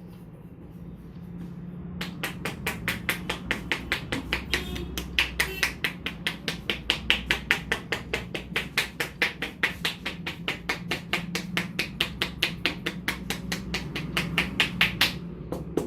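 Rapid, even percussive tapping of a masseur's hands striking the head and neck during an Indian head massage, about five strikes a second. It starts about two seconds in and breaks off briefly near the end.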